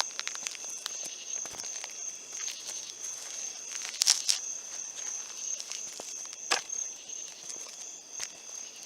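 Footsteps walking on the ground outdoors, a run of irregular crunches and crackles, loudest about four seconds in. A steady high insect drone runs underneath.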